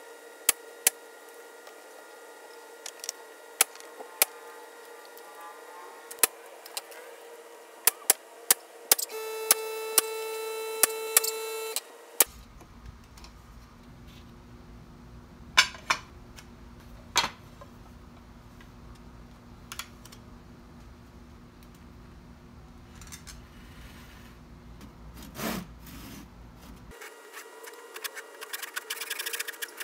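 Pneumatic finish nailer firing about a dozen times into brickmold trim: sharp single cracks at irregular intervals, followed by a steady hum for a few seconds. After that come quieter handling sounds with a few sharp clicks.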